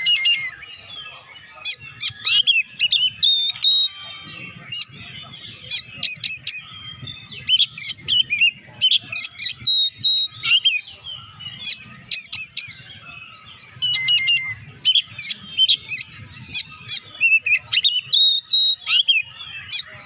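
Oriental magpie-robin (kacer) singing loudly in full song: quick phrases of sharp, sweeping whistled and chattering notes, repeated with short pauses between them.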